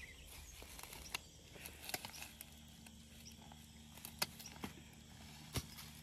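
Cassava being harvested in undergrowth: a few scattered sharp snaps and knocks among plants, over a faint steady low hum.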